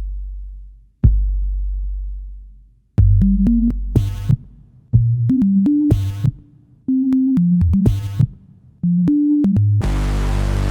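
Electronic music: a deep bass boom about a second in that slowly fades away, then from about three seconds a synth bassline changing notes under drum-machine beats, with short bursts of hiss roughly every two seconds and a longer swell of hiss near the end.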